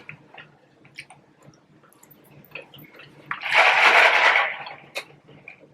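A loud slurp of lemonade lasting about a second, past the middle, among small mouth clicks and eating sounds.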